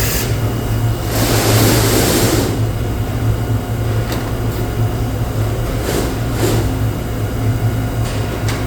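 TRUMPF Trumatic 1000 R CNC punch machine running: a steady low hum, a hiss lasting about a second near the start, and a few isolated sharp clicks in the second half.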